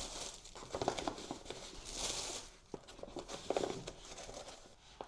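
Plastic-wrapped toilet paper rolls crinkling and rustling as they are handled and pushed against a waterproof bike frame bag, with soft fabric scuffs. The crinkling is loudest about two seconds in, with a couple of light clicks later on.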